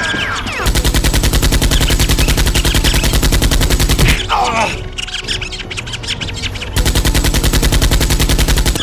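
Automatic machine-gun fire sound effect in two long rapid bursts, one starting about a second in and one near the end, with lighter rapid clicking and a short squeal between them. It is dubbed over a toy Nerf blaster.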